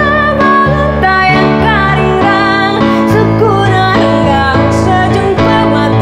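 A woman singing a song, accompanied on a Roland RD-700 stage keyboard, with the bass chords changing about two and three seconds in.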